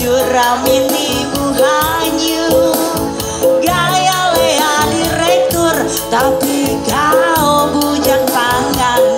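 Live band music played over a stage sound system, with a woman singing a regional song over a steady beat.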